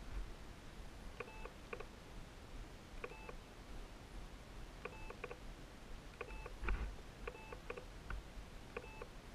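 Faint short chirping beeps at a few fixed pitches, repeated about every one to two seconds, over low background rumble.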